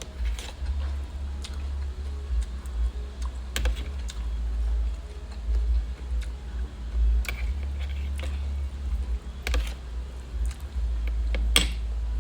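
A person eating: separate sharp clicks and crunches every second or two, the loudest near the end, over a steady low hum.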